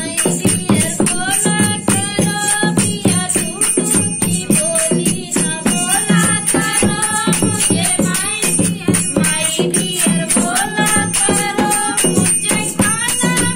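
Women singing a Hindi folk dance song to a dholak played by hand, with the steady beat of the two-headed drum and the jingling clink of small brass hand cymbals (manjira) keeping time.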